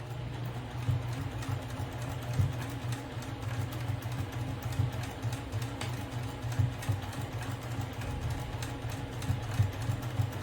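Electric sewing machine running steadily, its motor humming under a rapid ticking of the needle as it top-stitches a handle onto fabric.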